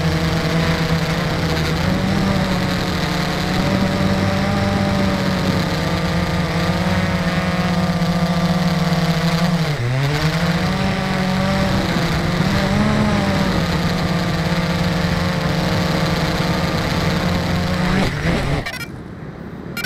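Drone's electric motors and propellers humming steadily, heard from its onboard camera; the pitch dips sharply and recovers about halfway through, and the motors stop suddenly near the end as the drone comes down in the grass.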